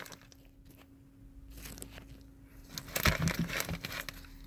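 Irregular crackling and rustling noises, loudest about three seconds in, over a faint steady hum.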